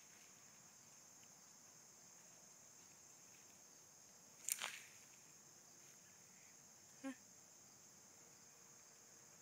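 Faint, steady, high-pitched chorus of insects. A brief sharp noise comes about four and a half seconds in, and a short pitched blip about seven seconds in.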